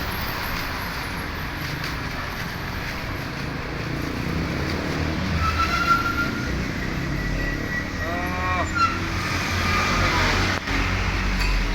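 Steady vehicle noise, a motor running or traffic, with low rumble. A brief pitched sound comes about eight seconds in.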